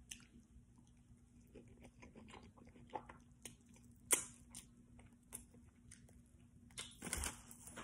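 Person chewing a crunchy Doritos Locos taco shell close to the microphone: faint crunches and wet mouth clicks, with a sharper lip smack about four seconds in as she licks her fingers.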